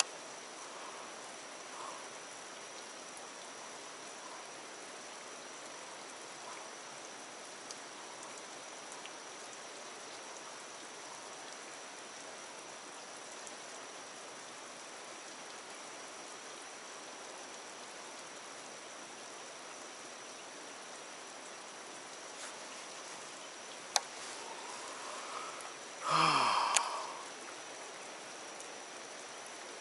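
Steady light rain falling on the water's surface. A sharp click comes near the end, followed by a short, louder sound that falls in pitch.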